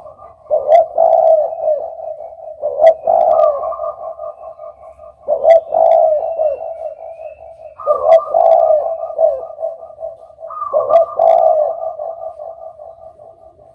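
Spotted dove (derkuku) cooing: about five repeated cooing phrases, one every two and a half seconds or so, the last one fading out near the end.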